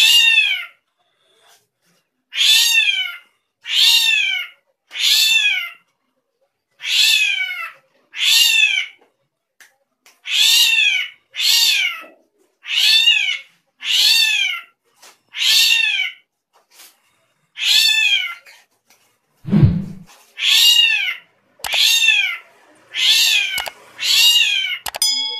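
Drongo giving cat-like mewing calls over and over, each a falling, clear-pitched note about half a second long, roughly once a second. One low thump comes about two-thirds of the way in.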